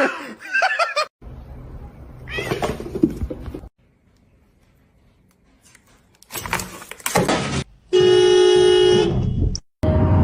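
Domestic cats meowing and yowling in several short clips cut together, with a near-silent gap partway through. Near the end a steady held tone lasts about a second and a half.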